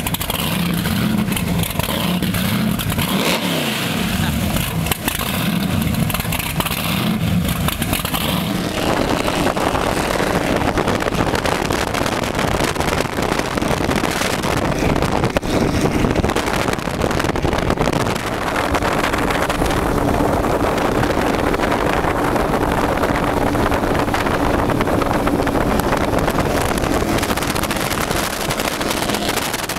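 Twin supercharged Mercury Racing 575ci big-block V8s idling rough at the dock, the revs rising and falling in pulses every second or so: blower surge makes them rev at idle. About nine seconds in, the sound gives way to the boat running flat out on open water, a steady engine drone under heavy wind and water rush.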